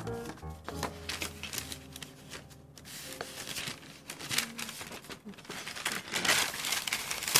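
Sheets of coloured paper and tracing paper being handled and folded, rustling and crinkling, loudest in the last second or so, over soft background music.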